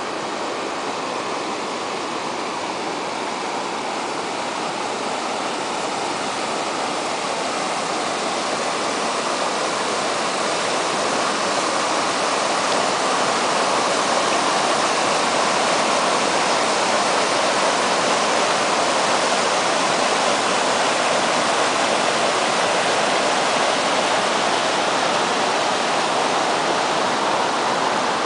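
Shallow river rushing steadily over rocks and rapids. It grows louder over the first dozen seconds, then holds steady.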